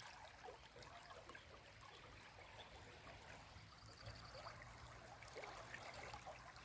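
Faint sound of the flooded Moulouya river running fast past the bank: an even wash of water with scattered small splashes.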